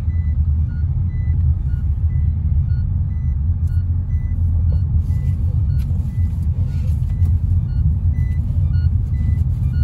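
A car's seat-belt warning chime beeping over and over in short, evenly spaced tones: a seat belt is unbuckled. Under it runs the steady low rumble of road and engine noise inside the car's cabin.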